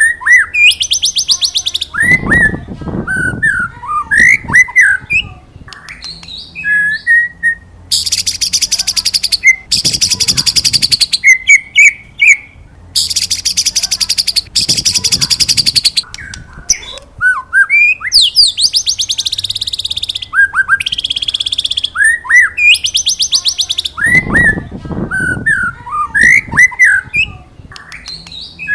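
White-rumped shama (murai batu) singing: clear whistled, sliding notes ('wit wit') alternating with long, fast, high buzzy trills ('cerrr'). The phrase sequence seems to repeat about every 22 seconds, with a brief low noise twice.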